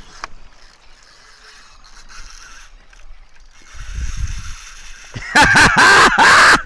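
Spinning reel's drag clicking and hissing faintly as a hooked barracuda takes line, then loud excited shouting for the last second and a half as the fish jumps.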